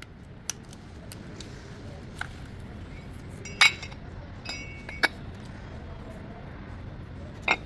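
Metal tools and parts clinking and knocking against each other in a series of about six separate sharp clinks, the loudest with a brief metallic ring. A steady low hum runs underneath.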